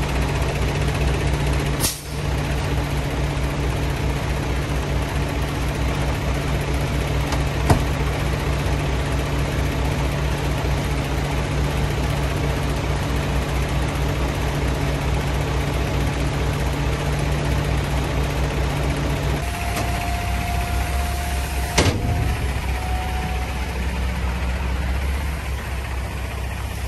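Semi truck's diesel engine running steadily, with a few short sharp clicks; the engine note changes about three-quarters of the way through.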